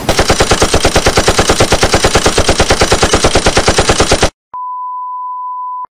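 A loud, rapid-fire string of sharp bangs, about a dozen a second, like machine-gun fire, lasting about four seconds and cutting off suddenly. After a brief gap a single steady high-pitched beep tone sounds.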